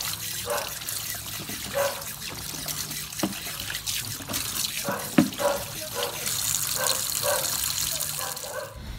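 Tap water running in a steady stream over duck eggs in a plastic colander in a metal sink, with hands rubbing the eggs clean on the final rinse to wash off the soap. There are a couple of dull knocks as the eggs are handled, and the water stops just before the end.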